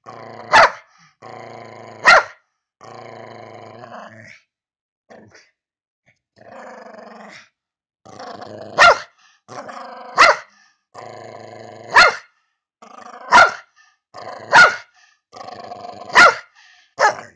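Small shaggy dog play-growling in long growls, each broken off by a sharp bark, about nine barks in all, with a short lull partway through.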